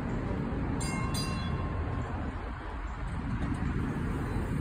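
A 1948 PCC streetcar rolling past on its steel wheels, rumbling along the rails. About a second in come two brief high rings.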